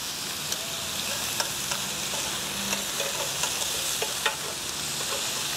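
Slices of pork sizzling steadily in a hot ridged grill pan, with scattered light clicks of metal tongs against the pan as the pieces are turned.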